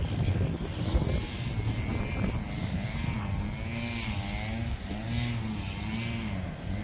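An engine hum whose pitch rises and falls about once a second, with rough, gusty noise in the first second.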